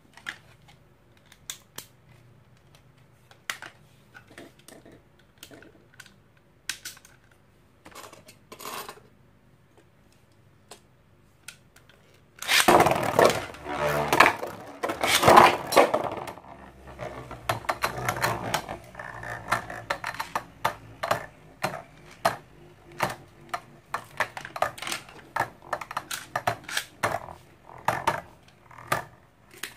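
Infinity Nado battle tops launched into a clear plastic stadium about halfway through with a loud burst, then spinning and clashing with many sharp, irregular clacks as they collide. Before the launch there are only scattered light clicks.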